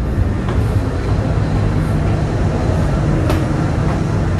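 Jakarta–Bandung high-speed train running: a steady, loud low rumble of wheels on track, with a light click about three seconds in.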